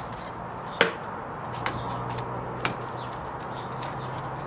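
Three sharp clicks, the loudest about a second in, as loose mortar is picked out of the open, cracked joint above a window lintel with a gloved hand. A steady low hum runs underneath.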